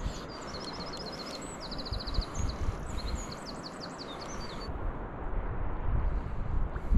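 A songbird sings a rapid, varied phrase of high notes, including a quick run of about ten descending notes, stopping at about four and a half seconds, over a steady rush of flowing river water. Low wind buffets on the microphone toward the end.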